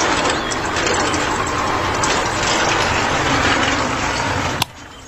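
Miniature electric concrete mixer running: its small motor and gears turning the drum with loose contents churning inside, a dense steady rattle. About four and a half seconds in it is switched off with a click and the noise cuts off suddenly.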